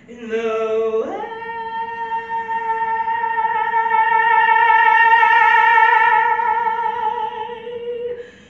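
A woman singing a long held note with vibrato. About a second in she slides up about an octave from a lower note, then holds the high note until just before the end.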